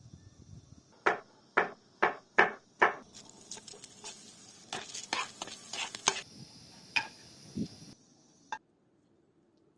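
Kitchen work with utensils and cookware: five sharp knocks about two a second, then a quicker run of clatters and a few last knocks. A steady high drone runs underneath and stops near the end.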